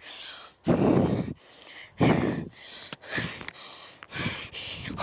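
A person breathing hard close to the microphone, with a heavy rushing exhale about every second and a quarter. The two around one and two seconds in are the loudest and the later ones weaker.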